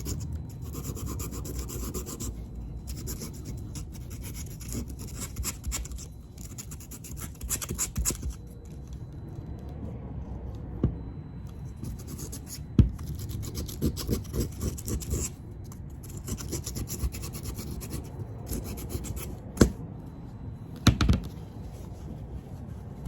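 Bicycle disc brake pad being sanded by hand on sandpaper to clean its dirty, oil-contaminated surface: spells of quick rasping strokes with short pauses, and a few sharp knocks in the second half.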